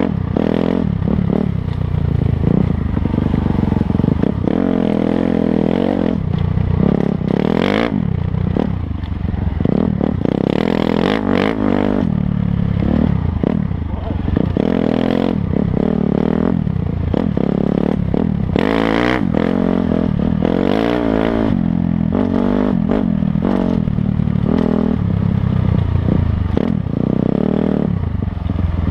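Dirt bike engine revving up and down as it climbs a rough trail, its pitch rising and falling with the throttle. Clatter and scrape of the bike over rocky ground mixes in.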